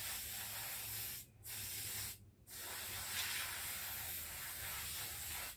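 Aerosol olive oil sheen spray hissing from the can in three bursts, with short breaks about one and two seconds in; the last burst is the longest.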